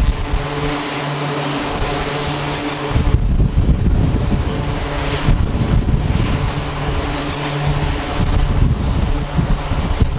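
Aircraft engines running on a carrier flight deck: a loud, steady hum with a hiss over it. An uneven low rumble of wind on the microphone comes and goes.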